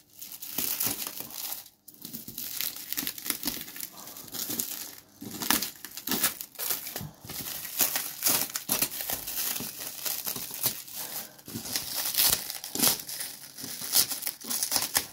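Black plastic wrapping film crinkling and tearing as hands pull it off a taped cardboard parcel, an irregular run of crackles and rustles throughout.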